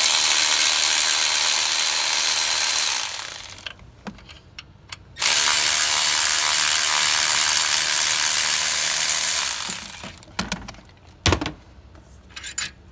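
Milwaukee cordless electric ratchet running twice, about three to four seconds each, backing out the two 15 mm alternator mounting bolts. A few light clicks and knocks of tool and metal parts come between the runs and near the end.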